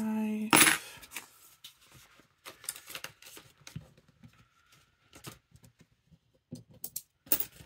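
Coins being picked up off a desk mat and set down into a small trinket dish, light clicks and clinks, with the crinkle of a plastic binder pocket being handled. A short louder rustle comes about half a second in, and a few sharper clicks near the end.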